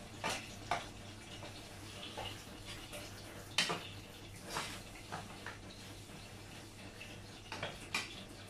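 Metal spoon scraping and clinking against a pot while a moist mix of chopped chicken is stirred, in irregular strokes. The loudest knock comes about three and a half seconds in.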